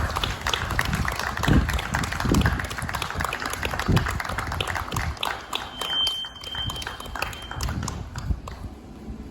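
Crowd applauding in strong typhoon wind, the gusts buffeting the microphone with an uneven rumble; the clapping thins out near the end. A thin steady high tone sounds for about two seconds in the middle.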